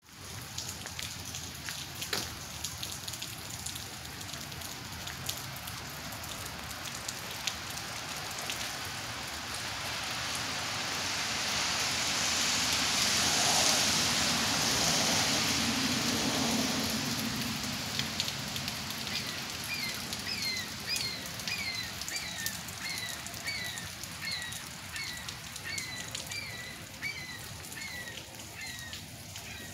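Steady hiss of wet snow falling, with scattered light ticks. A louder rushing hiss swells and fades over several seconds in the middle. From about two-thirds of the way in, a bird gives a short call over and over, about once or twice a second.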